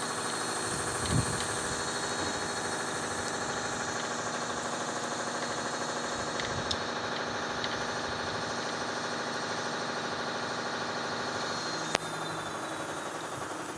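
Steady, engine-like mechanical hum, even throughout, with a single sharp click about twelve seconds in.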